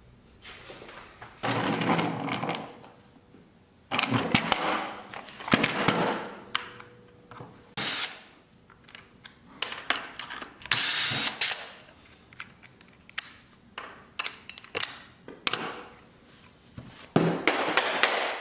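Power tool run in a series of short bursts with pauses between them, during metal shop work on a steel bed frame.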